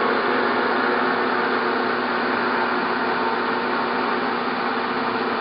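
Acra 16x40 engine lathe running in high gear with the carriage under power feed: a steady whir of the spindle and gearing with a few steady tones, sounding in good order.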